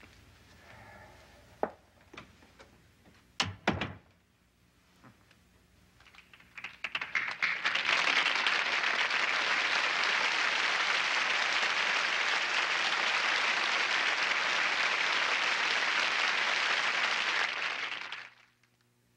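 A door shutting, with a sharp knock and then two heavier thumps in the first few seconds. Then studio audience applause builds from about six seconds in, holds steady, and fades out shortly before the end.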